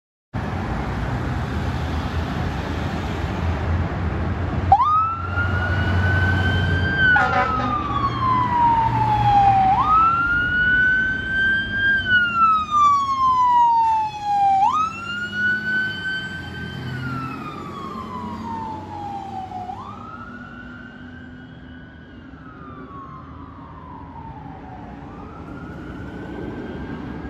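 Fire engine's siren wailing, switched on about five seconds in: each cycle rises quickly, holds briefly and slides slowly back down, repeating about every five seconds. It plays over the truck's diesel engine rumble and grows fainter toward the end as the engine drives away.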